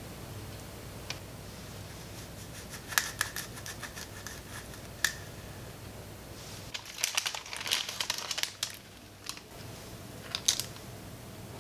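Small clicks and taps of a clear plastic round pastry cutter pressing through a sheet of cocoa shortbread dough, scattered through the first half. Past the middle comes a denser run of crinkling and ticking from baking paper as the cut discs are handled and laid on a lined tray.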